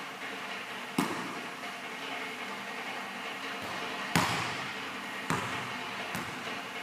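Basketball bouncing on a hardwood gym floor: four separate thumps, the loudest a little past the middle, each echoing in the hall over a steady background hum.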